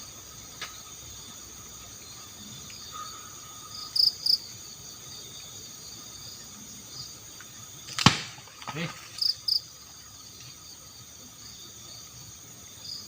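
Night insects, crickets among them, chirring steadily, with loud paired chirps twice. About eight seconds in there is a sharp knock, the loudest thing here, followed by a brief lower sound.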